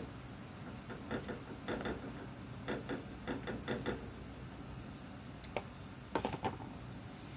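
Metal utensil tapping against a nonstick frying pan while prodding frying sweet potato hash browns: several runs of short light taps, a single tap, then a last few taps near the end.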